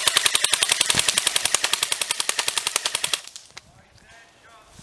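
Airsoft gun firing a long full-auto burst, a fast, even rattle of shots that stops about three seconds in.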